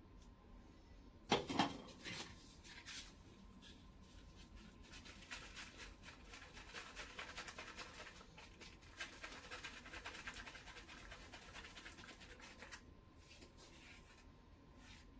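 Kitchen utensil handling: a sharp double clack about a second in, then about eight seconds of rapid, fine scratching and clicking before it stops.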